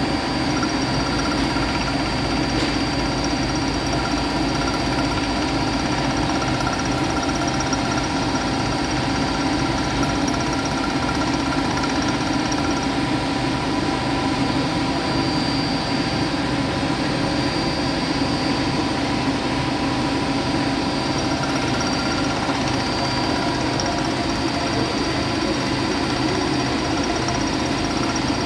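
Metalworking machine tool running steadily under power: a constant motor hum with a thin, steady high whine.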